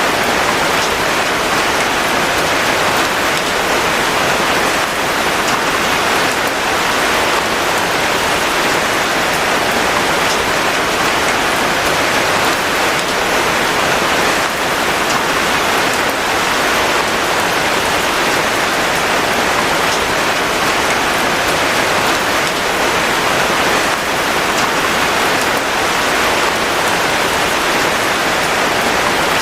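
Steady heavy rain falling, a dense even hiss with scattered drop ticks.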